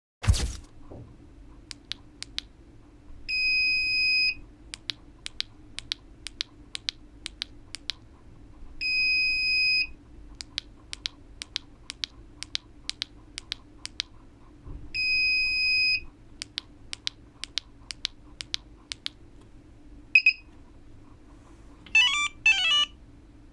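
Pandora car alarm's Valet button being clicked repeatedly in groups, most likely to key in the four-digit emergency disarm code. A steady electronic beep of about a second answers each group, three times, and a short beep follows the last. Near the end the system gives a quick warbling chirp.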